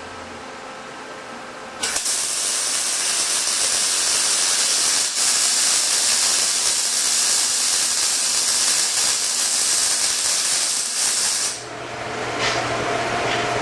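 Welding arc running a bead on steel square tubing, a loud steady crackling hiss that starts about two seconds in and stops suddenly near the end.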